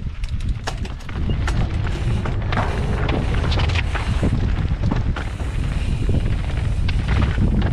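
Wind buffeting the helmet-mounted camera's microphone as a mountain bike rolls down a rocky trail, with the clatter and knocks of tyres and bike over stones. It gets louder about a second in as the bike picks up speed.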